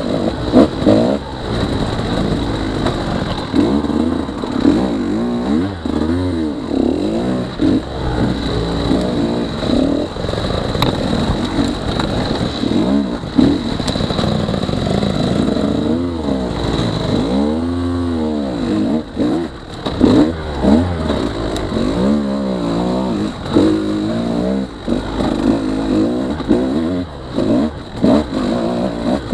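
2017 KTM 150 XC-W's two-stroke single-cylinder engine being ridden on trail, the revs rising and falling every second or two as the throttle is worked, with one longer drop and climb near the middle.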